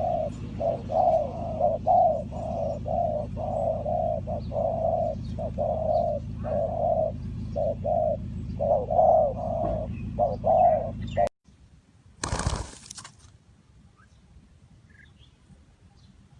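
Spotted dove cooing over and over in a long run of notes, over a steady low hum. Both cut off about eleven seconds in, followed by a brief loud rush of noise and then faint chirps.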